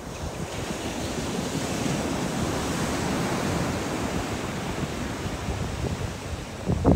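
Ocean surf on a beach: a wave washing in, swelling over the first couple of seconds and slowly easing off, with wind buffeting the microphone near the end.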